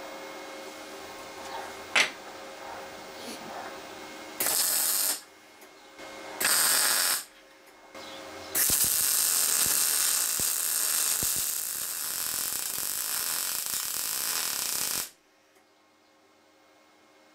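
MIG welding arc from a VEVOR MIG-200D3 welder on steel plate. There are two short bursts of crackling hiss, about a second each, then a steady crackling run of about six seconds that cuts off suddenly.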